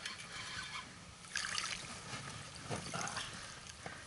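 Water trickling and splashing lightly at the side of a boat as a hooked pike is brought in, with a couple of brief louder splashes about a second and a half in and again near three seconds.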